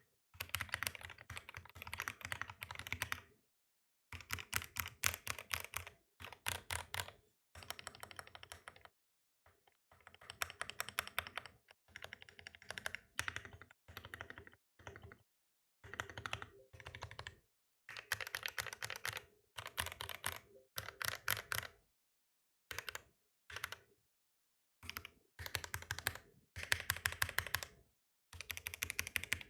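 Typing in bursts on a custom NK65 Aluminum V2 mechanical keyboard with lubed linear switches, MT3 keycaps and plate foam in a burger-mount (standoff-removal) build: quick runs of keystrokes, each a few seconds long, with short pauses between.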